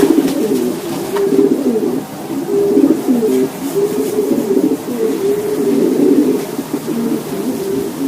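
Several domestic racing pigeons cooing without a break, their calls overlapping.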